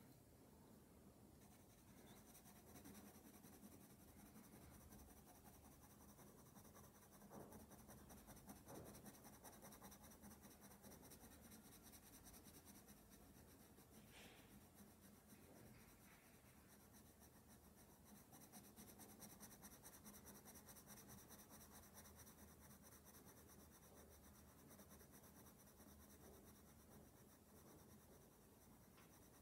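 Faint, steady scratching of a Berol Fantasy 500 coloured pencil shading on drawing paper.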